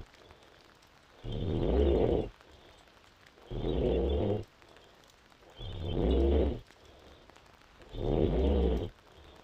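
A woman five months pregnant snoring in deep sleep: four snores, each about a second long, coming regularly about every two seconds with quiet breathing between.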